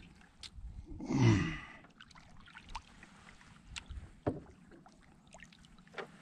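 Scattered light clicks and taps from handling fishing tackle in a small boat, over faint water and wind hiss. A brief voice sound, a short hum or murmur, comes about a second in.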